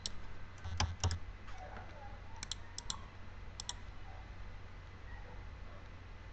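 A handful of light, sharp clicks from computer input, several coming in quick pairs, over a faint steady low hum.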